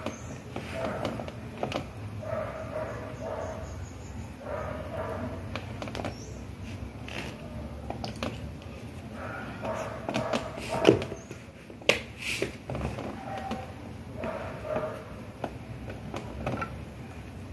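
Ipanema flip-flops slapping and tapping against bare feet and a wooden floor as they are dangled and flicked off the toes, in scattered irregular smacks with the loudest two about 11 and 12 seconds in. Faint pitched voice-like sounds run underneath.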